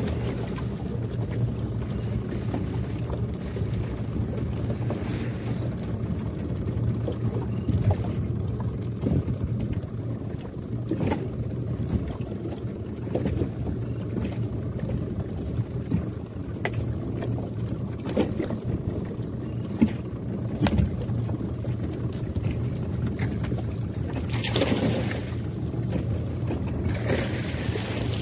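Yamaha 15 hp outboard motor running steadily at trolling speed, a low drone under the rush and slap of water along a small fibreglass boat's hull. Two louder washes of noise come near the end.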